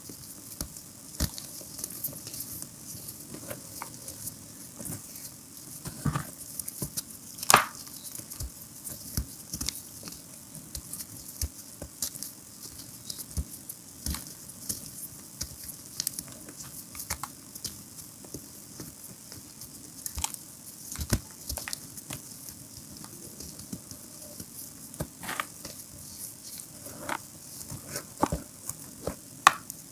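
Gym chalk reforms crumbling and crunching in bare hands, the powdery crumbs pattering back onto a heap of chalk rubble. The crackles are irregular, with one sharp crack about seven and a half seconds in.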